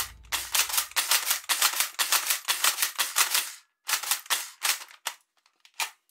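Plastic mechanism of a toy MP5-style submachine gun clicking quickly as it is worked, about eight sharp clicks a second. The clicks then slow to a few scattered ones and stop near the end.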